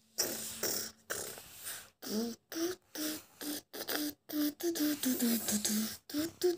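A voice making beatbox-style breathy, percussive mouth sounds for about two seconds, then vocalising a tune in short, clipped notes, two or three a second, stepping up and down in pitch.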